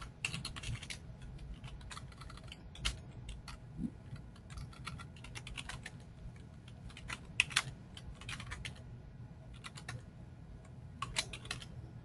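Typing on a computer keyboard: quick irregular runs of keystrokes with short pauses between them, over a faint steady low hum.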